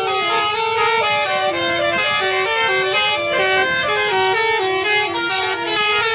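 Telolet bus horns, several playing tooting melodies at once, their stepped notes overlapping in a horn battle.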